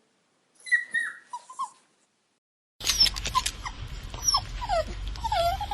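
A puppy gives a few short high whines that fall in pitch. After a second's pause, a bulldog cries in quick, repeated high whimpers that slide up and down, over a steady low background hum.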